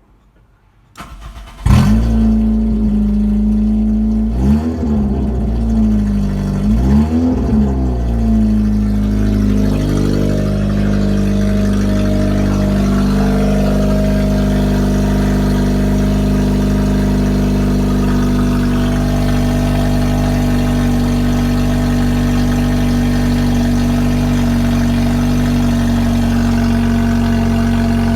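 Toyota 4E-FE 1.3-litre four-cylinder petrol engine from a Corolla E110 starting about two seconds in. It is revved twice, each rev rising and falling, then settles into a steady idle.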